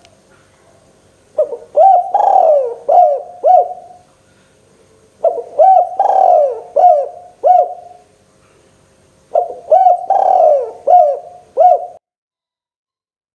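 Spotted dove (tekukur) cooing: three phrases of four or five coos each, a couple of seconds apart. The sound cuts off abruptly near the end.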